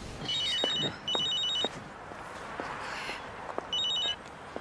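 Electronic telephone ringing in the double-ring pattern: two bursts of rapid, high trilling pulses close together, then a pause and a third, shorter burst near the end.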